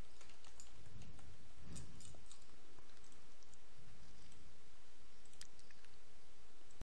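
Faint clicks of a computer keyboard being typed on, over a steady hiss with a faint hum; everything stops abruptly near the end.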